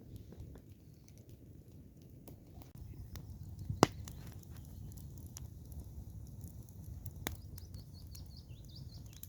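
Wood campfire crackling: scattered sharp clicks over a low rumble, with one loud pop just under four seconds in and another a little after seven seconds.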